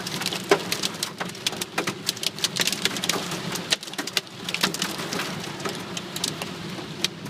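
Hailstones pelting a car's roof and windshield, heard from inside the cabin as a dense, irregular patter of sharp clicks, some hits much louder than others. The car's steady low hum runs underneath.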